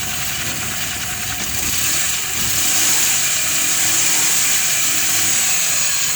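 Suzuki F6A three-cylinder engine in a Multicab running, getting louder about two seconds in and holding there. It now starts and runs after its slipped timing belt was refitted to the timing marks.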